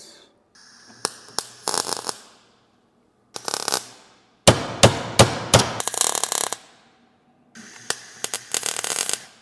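MIG welder stitch-welding a steel patch panel onto the thin sheet-metal floor pan of a 1972 Toyota Corolla. The arc crackles and pops in four short bursts, separated by brief pauses.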